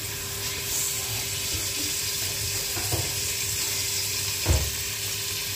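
Sliced onions sizzling as they fry in hot oil in an aluminium pressure cooker, a steady hiss with a low thump about four and a half seconds in.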